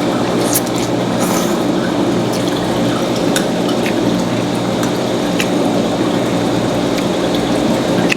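Wet, close-up chewing of garlic noodles, with scattered sharp mouth smacks and clicks, over a steady background hum.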